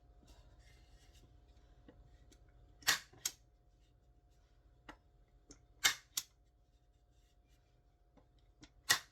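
HART 2-in-1 forward action stapler firing 18-gauge brad nails into wood: three sharp snaps about three seconds apart, each followed quickly by a second, lighter click.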